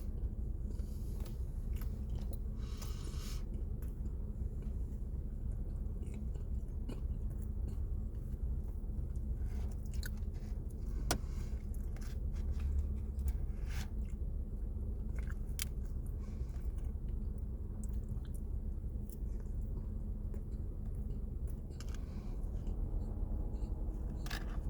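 A person chewing and biting a pumpkin spice cinnamon roll, with scattered short mouth clicks over a steady low background hum.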